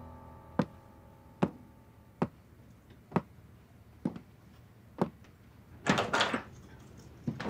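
Slow, even footsteps on a staircase, six sharp steps a little under a second apart, then a door being opened about six seconds in.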